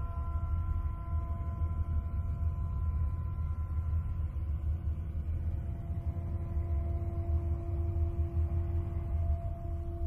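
Space-probe sound presented as the sound of Jupiter's moon Io: a continuous deep rumble with several steady eerie tones held above it. The higher tones fade out in the first few seconds while a lower tone swells in the second half.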